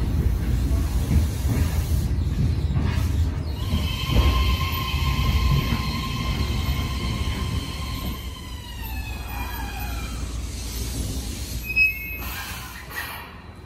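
JR East E131 series electric train rolling slowly along the platform and coming to a stop. There is a heavy wheel-and-rail rumble, and a few seconds in a high electric whine sets in that slides down in pitch as the train slows. Near the end comes a brief sharp squeal.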